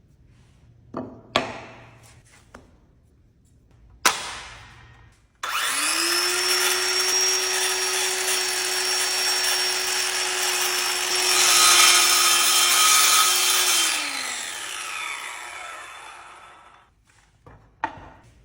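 Electric power tool, a saw, starts up and runs steadily for about eight seconds with a harsh cutting noise that grows louder near the end, then winds down with falling pitch. A few sharp knocks and clicks come before it starts.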